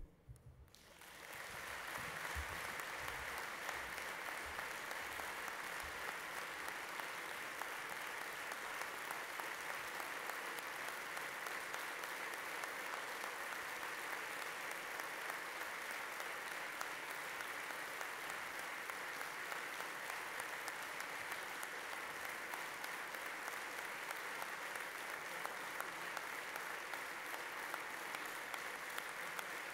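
Large audience applauding: dense, sustained clapping that builds up within the first second or two and then holds steady.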